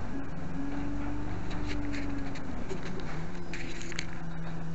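Bus interior noise: the engine drones steadily with a low hum, a whine that rises and falls in pitch, and scattered rattles and clicks. The handheld camera rubs and scrapes against hand or clothing.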